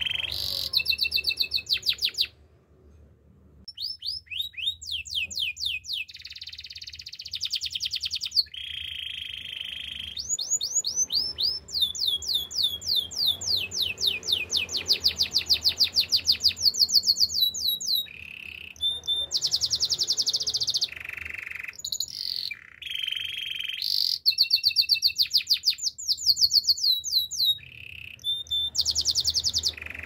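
Domestic canary singing: fast trills of quick repeated down-slurred notes alternating with buzzy rolls, with a short pause about two to three seconds in.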